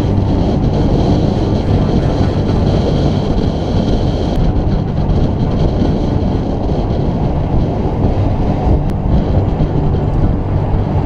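Steady, heavy wind rumble on a bicycle-mounted camera's microphone, mixed with road noise from the bike rolling at speed.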